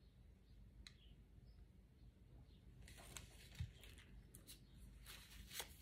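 Near silence: room tone with a low hum and a few faint, short clicks and ticks, mostly in the second half.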